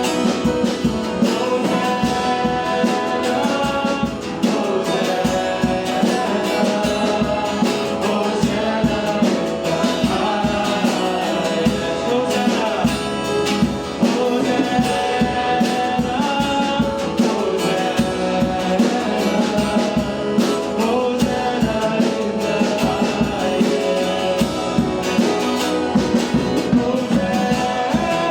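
Church worship song: voices singing over instrumental accompaniment with a steady beat.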